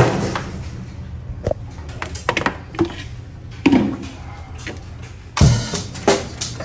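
Background music with a drum kit and a steady bass line; the drums come in louder about five seconds in.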